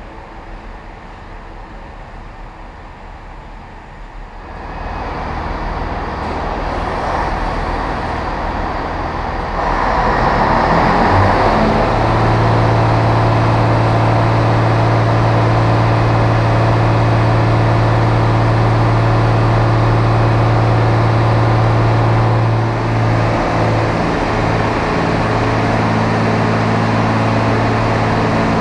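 Diesel multiple unit's underfloor diesel engine running, a steady low hum with a constant pitch. The noise builds over about the first ten seconds, then holds steady, with a brief wobble about three-quarters of the way through.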